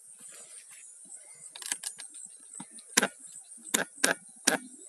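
Steady high-pitched chirring of night insects, with about four sharp knocks or clicks in the second half that are much louder than the insects.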